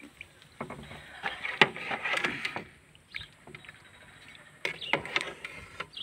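A long metal ladle stirs curdled goat's milk in an aluminium pot. The liquid sloshes and the ladle clinks against the pot, in two spells: one from just after the start to past halfway, and a shorter one about five seconds in. The curd is being heated toward the boil to firm it into cheese.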